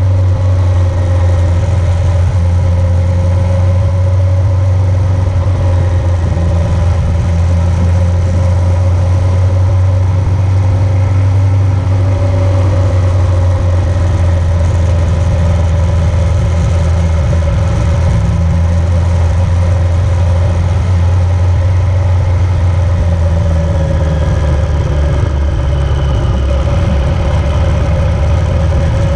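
A vehicle's engine running steadily, with a loud, even low drone and a few faint steady tones above it throughout.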